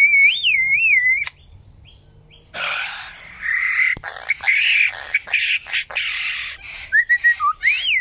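A lyrebird sings a varied, mimicking song. It opens with a looping whistle that rises and falls, breaks into a run of harsh, noisy squawks, and ends with short whistled notes and another looping whistle.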